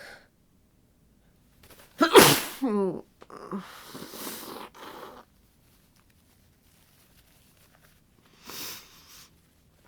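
A person with a head cold sneezes once, loudly, about two seconds in, the voiced end of the sneeze falling in pitch. A couple of seconds of rushing breath noise follow, and a short breath sound comes near the end.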